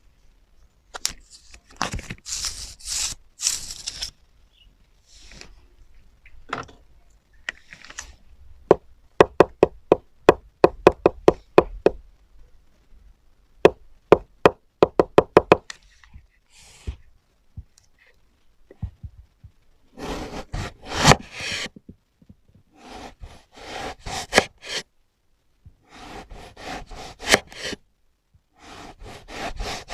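A kitchen knife cutting eggplant: two runs of quick, even chopping knocks, about four to five a second, and longer stretches of crisp slicing and scraping.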